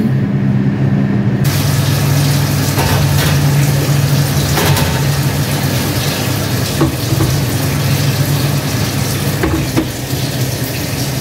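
Built-in electric oven running, a steady rushing fan noise over a low hum. Light knocks near seven seconds as the baking pan goes in, and the oven door shutting about nine and a half seconds in.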